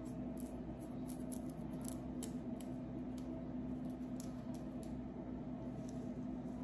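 Long fingernails scratching through the hair of a scalp with dandruff, making short crisp scratches about two or three times a second, over a steady low hum.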